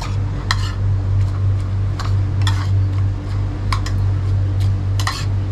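Irregular sharp clicks and clinks, a few a second, over a loud steady low hum.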